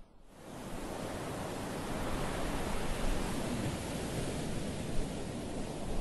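Small waves washing up on a sandy beach, a steady hiss of surf. It fades back in from a brief drop in level at the very start.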